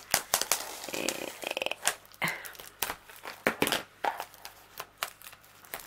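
Scissors cutting into the cellophane wrap of a cardboard box, then the plastic film crackling and crinkling as it is pulled off. The sound is a string of sharp clicks and crinkles, with a short fast rasp about a second in.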